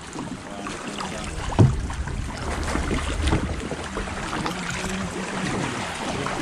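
Water sloshing and splashing around a kayak as it is paddled, with wind buffeting the microphone. A single sharp knock about a second and a half in.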